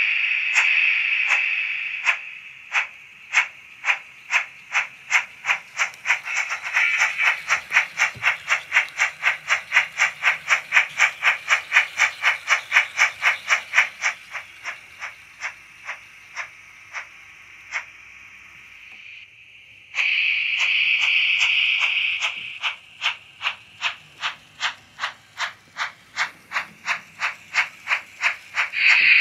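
Sound decoder of an H0-scale Baden class 75 steam tank locomotive model playing digital steam chuffs through its small loudspeaker as the model runs. The chuffs quicken to about three a second, then slow and fade away. About twenty seconds in comes a sudden hiss of steam, and the chuffing starts again.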